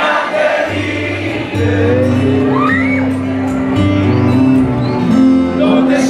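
Live band music with singing, the acoustic-electric guitar and bass guitar playing under held bass notes and sung lines.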